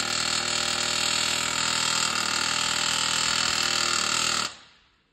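Pneumatic air hammer hammering rapidly and steadily against a heated rivet in a steel truck frame, driving the rivet out. The hammering stops about four and a half seconds in.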